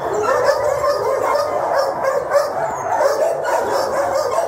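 Many dogs in pound kennels barking and yelping together in a dense, unbroken din.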